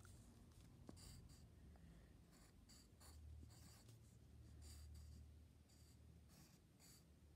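Faint scratching of a drawing implement on lined notebook paper: a series of short strokes with brief pauses between them as letters are outlined.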